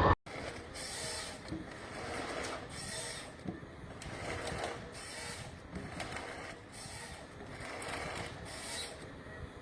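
Forestry harvester working at a distance: a faint steady machine tone with repeated short bursts of hissing, scraping noise at irregular intervals. It cuts in after a momentary drop-out.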